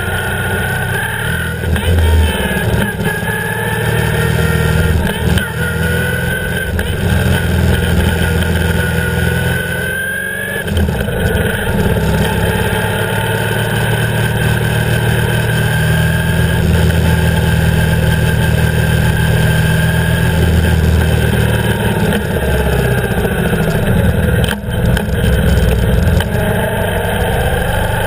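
BMW R 1150 GS's boxer twin engine running under way, heard close up, its revs rising and falling repeatedly, with a short drop in level about ten seconds in.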